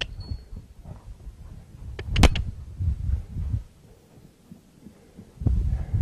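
A horse's hooves thudding on sandy ground as she canters around the pen, quieter for a moment before starting up again near the end. A few sharp clicks about two seconds in.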